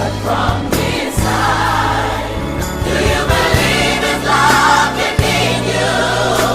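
Gospel song: a choir sings over an instrumental backing with a steady bass line.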